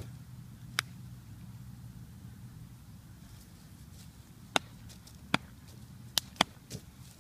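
Six sharp hand slaps from a changquan wushu form: one about a second in, then a quick run of five near the end, two of them in fast succession. A low steady hum runs underneath.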